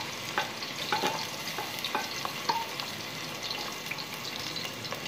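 Sliced onions frying in hot oil in a metal pot, with a steady sizzle and a spatula scraping and knocking against the pot every second or so as they are stirred.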